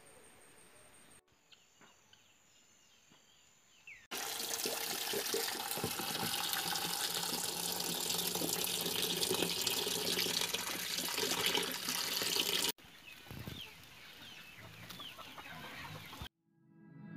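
Tap water running hard into a plastic colander of cherry tomatoes in a steel sink, a steady splashing rush of about eight seconds that cuts off suddenly. Quieter stretches before and after carry outdoor bird calls.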